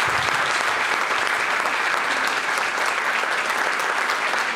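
Audience applauding at the end of a talk: many people clapping, dense and steady.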